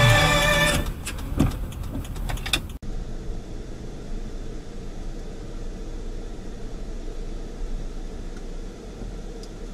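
Steady engine and road noise of a car driving, heard from inside the cabin through a dashcam, after music cuts off in the first second.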